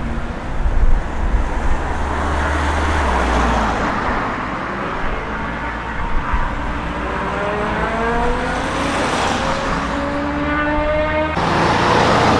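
Car engines accelerating away, the engine pitch rising through one gear and then the next in the second half. Near the end a louder, deeper engine sound takes over as a Mercedes-AMG C-Class saloon drives past.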